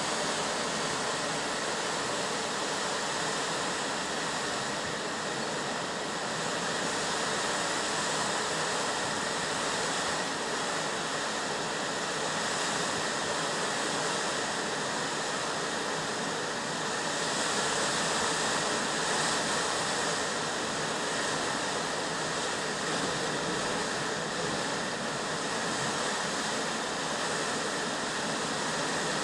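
Steady rush of strong blizzard wind, swelling and easing slightly without pause.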